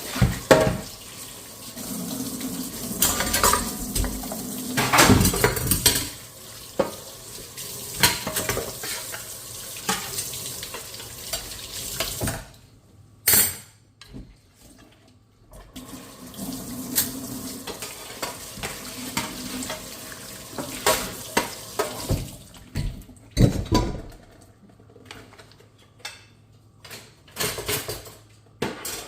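Dishes being washed in a kitchen sink: running tap water swishing, with frequent clinks and knocks of dishes and cutlery against each other. The water stops briefly near the middle, and toward the end there are mostly scattered clinks of dishes being handled.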